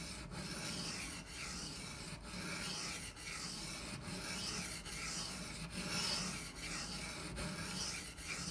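Knife blade of CTS-204P steel scraping back and forth on the 1000-grit side of a wet soaking water stone, in steady strokes about one a second. These are the first 1000-grit passes, removing the burr and the 120-grit scratches.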